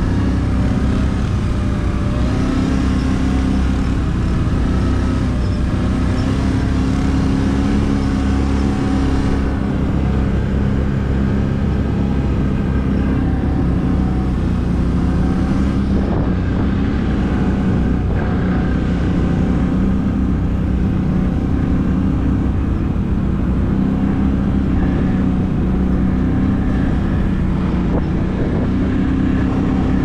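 ATV engine running steadily under way, its pitch drifting slightly up and down with the throttle.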